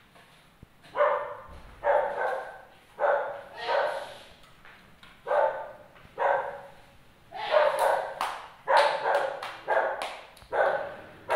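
A dog barking about a dozen times in an irregular series, often in pairs, beginning about a second in.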